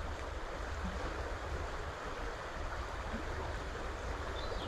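Small stream flowing over a riffle: a steady rush of running water.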